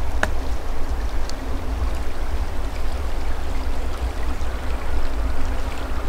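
Steady rush of a small forest stream under a low rumble of wind on the microphone, with a single sharp click about a quarter second in.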